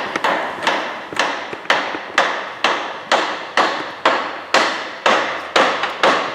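Steady hammer blows, about two a second, each a sharp knock with a short ring in a reverberant shop.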